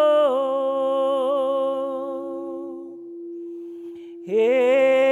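Chanted vocables: a held sung note with a slight waver, over a steady drone tone, fading out about three seconds in. A new sung note starts about four seconds in over the same unbroken drone.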